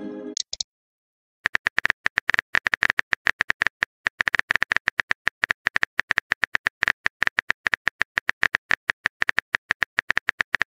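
Simulated phone-keyboard typing: a rapid, steady run of key-tap clicks starting about a second and a half in, as a new chat message is being typed. At the very start, the tail of a short musical pop notification fades out.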